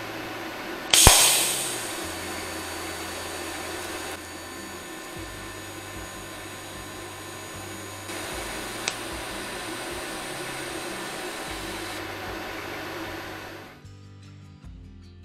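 A TIG welding arc strikes about a second in with a sharp crackle, then runs as a steady hiss while a 60-amp fusion weld, with no filler rod, is laid on 1.6 mm steel; the arc stops about twelve seconds in. Background music plays underneath.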